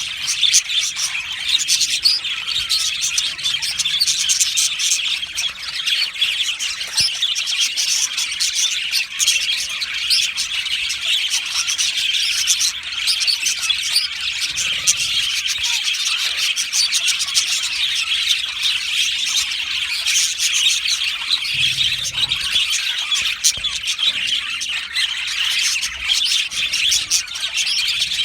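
A budgerigar colony chirping and warbling together, a constant dense chatter of many overlapping high calls and squawks.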